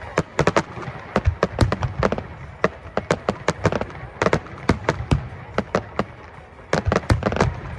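Fireworks display going off: rapid, irregular sharp cracks and bangs, several a second, coming in clusters.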